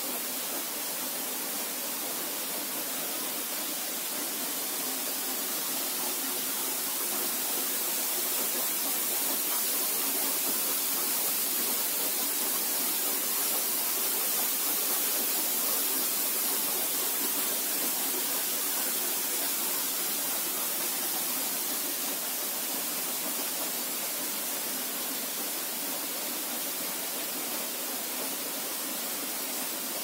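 Steady hiss and rush of a narrow waterfall plunging into a shallow rock pool, a little louder midway.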